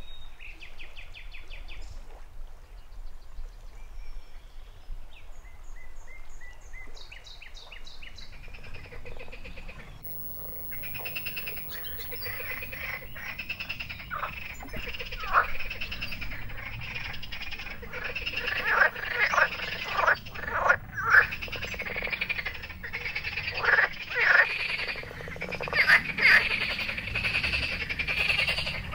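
Frogs croaking in a dense chorus by a river, starting about ten seconds in and growing louder, with frequent loud individual calls standing out. Before the chorus there are a few short trilling bird calls.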